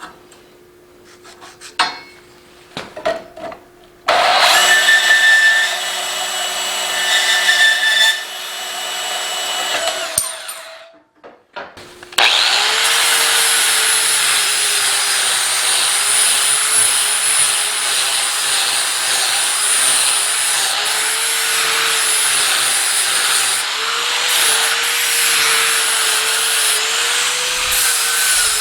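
A power tool runs in two stretches: a short one about four seconds in, then a longer steady run from about twelve seconds in, a loud hiss with a wavering hum beneath it. A few light clicks and knocks come before it.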